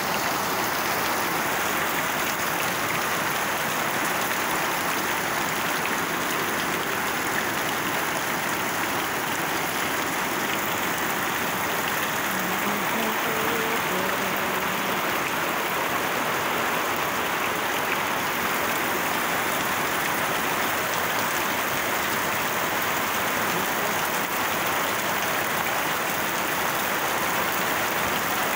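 Heavy typhoon rain pouring steadily onto pavement, an unbroken hiss of rain.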